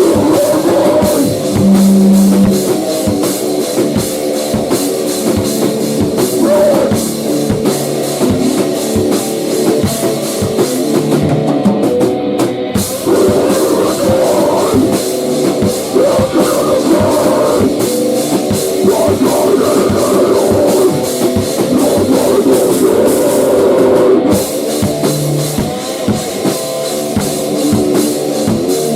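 Rock band playing a heavy instrumental passage: electric guitar over a driving drum kit with steady, dense drum strokes. The cymbals drop out for a moment twice, about twelve seconds in and near twenty-four seconds.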